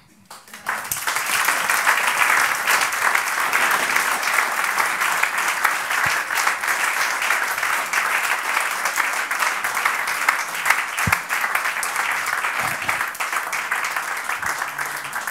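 Audience applauding: dense clapping that starts about half a second in and holds steady, thinning slightly near the end.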